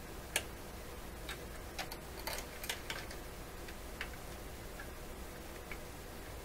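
Irregular light clicks and taps of hand tools and parts being worked on a tube radio chassis, about a dozen spread unevenly over a few seconds, the sharpest about half a second in.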